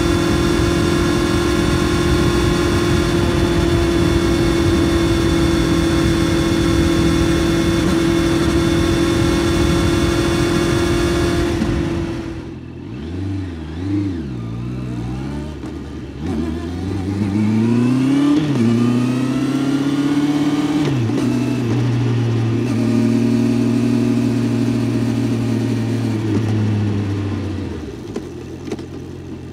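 Honda CBR650F's inline-four engine held at steady high revs for about twelve seconds, then dropping off with a couple of quick rises and falls in revs. It then pulls up twice with rising pitch, each climb cut short by a gear change. It holds steady for a few seconds and eases off near the end.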